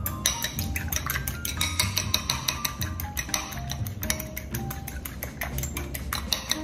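A fork whisking a raw egg in a small glass bowl: rapid, quick clinks of metal against glass, with music playing behind.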